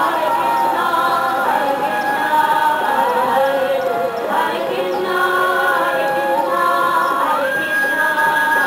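Music with several voices singing long, held notes together, like a choir, the pitches sliding from one note to the next.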